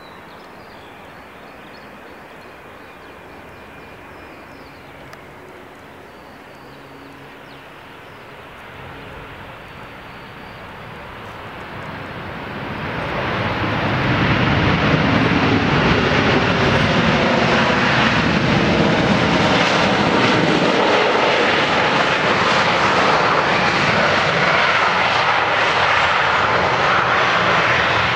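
Boeing 737-300 airliner's CFM56 turbofan engines landing. The jet noise is fainter at first, then swells about 12 seconds in to a loud, steady rush as the plane reaches the runway and rolls along it.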